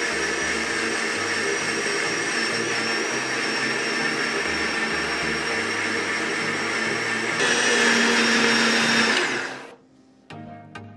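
Borosil Fortuner 1000 W mixer grinder running steadily with a high whine, wet-grinding batter in its stainless steel grinding jar. About seven seconds in its note shifts and gets a little louder. It is switched off shortly after nine seconds and winds down quickly.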